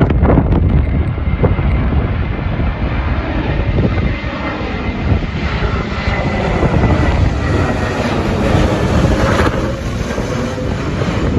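Twin-engine jet airliner on approach to land, passing low overhead: a loud, steady rush of jet engine noise with a faint high whine about halfway through.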